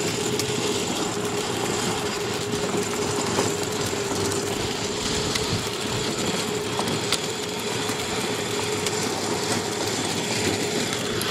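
A steady machine-like running noise with a constant hum, broken by a few faint clicks.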